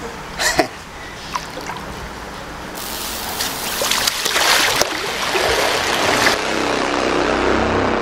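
River water splashing as a wading man stirs and scoops it with his hands, from about three seconds in to about six seconds in, over the low rush of the stream. Eerie background music comes in near the end.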